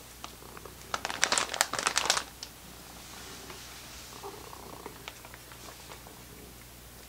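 A plastic bag of dried bonito flakes (katsuobushi) crinkling loudly for about a second, starting about a second in. Afterwards, quieter small clicks and smacks of a cat licking and chewing the flakes from a dish.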